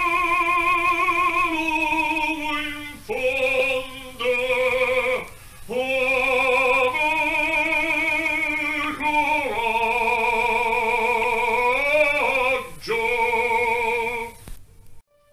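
Baritone voice singing an operatic phrase unaccompanied, in several sustained notes with a wide vibrato and short breaks between phrases, stopping abruptly just before the end. It demonstrates a clear, ringing tone (squillo).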